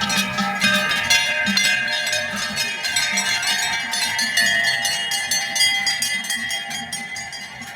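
Many large cowbells on passing cattle clanging continuously and irregularly, their strikes overlapping into a dense ringing.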